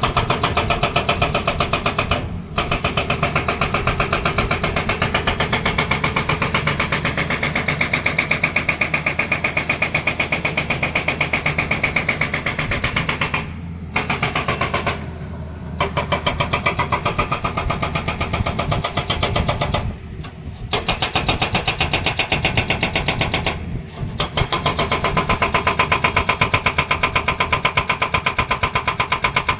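Hydraulic breaker on a Tata Hitachi excavator hammering rapidly and steadily, with the excavator's engine running underneath. The hammering stops briefly a few times and then starts again.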